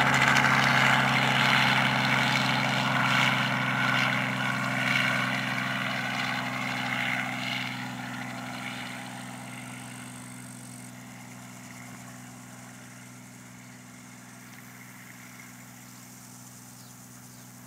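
Robinson R44 helicopter flying low past and away: a steady low drone of rotor and piston engine with a broad rushing noise over it, loud at first and fading steadily through the second half as it recedes.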